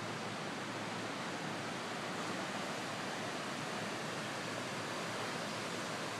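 Fast-flowing floodwater from a river over its banks, rushing steadily and evenly.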